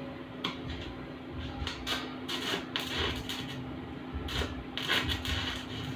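Irregular knocks and clatters, as of metal pieces being handled, with a steady low hum underneath.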